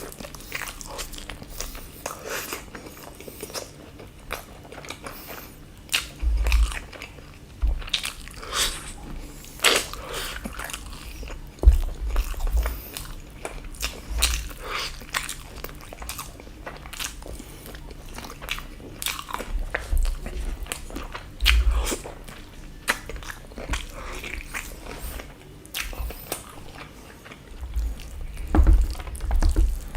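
A person eating close to the microphone: chewing and biting into chicken and rice, with irregular wet clicks and mouth sounds and occasional low thumps.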